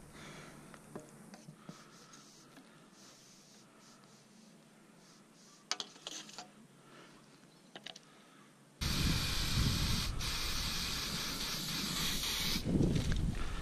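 Aerosol can of hairspray spraying into the combustion chamber of a PVC orange cannon, loading it with fuel for firing. The steady hiss starts abruptly about nine seconds in and lasts nearly four seconds. Before it there are a few faint clicks and handling rustles.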